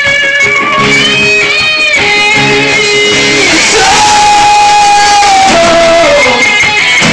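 Live rock band playing, electric guitar to the fore with long held notes, one of them sustained for about a second and a half midway.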